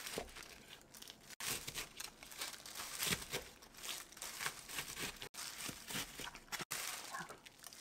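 Kitchen knife cutting thin-sliced raw beef on a thin plastic cutting board, a run of faint, irregular strokes, with the crinkle of a disposable plastic glove holding the meat.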